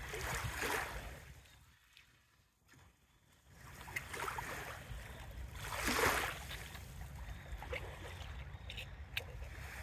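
Water sloshing and splashing around a dog wading in shallow sea water, in a few separate washes, the loudest about six seconds in, over a steady low rumble.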